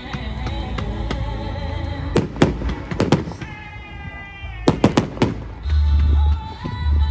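Fireworks bursting: about eight sharp bangs in quick pairs and a cluster, over music with a heavy bass.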